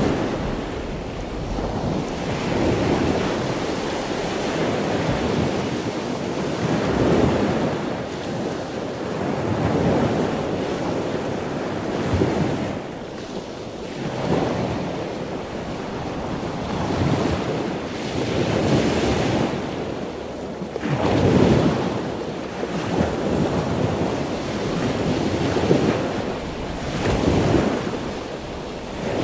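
Waves washing onto a shore: a steady rushing wash that swells and eases every few seconds.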